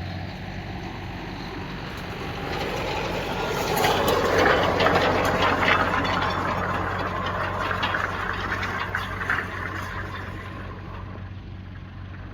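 Tractor engine running steadily while it pulls a hay rake, with a louder rattling, rushing noise swelling up about two seconds in and dying away near the end.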